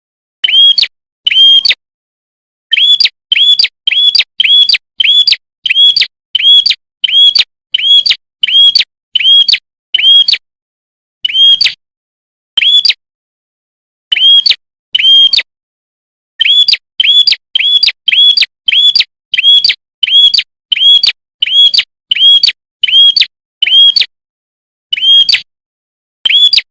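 A prenjak (prinia) giving a rapid series of loud, sharp chirp notes, about two a second, in runs broken by brief pauses.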